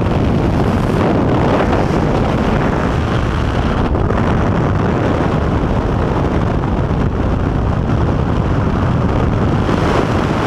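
Steady, loud rush of wind through the open door of a skydiving jump plane in flight, mixed with the aircraft's engine and buffeting the microphone.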